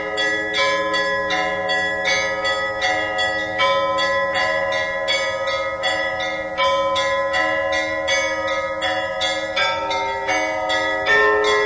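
Russian church bells ringing in a continuous peal: quick strikes about three a second over a steady, overlapping ring of lingering bell tones.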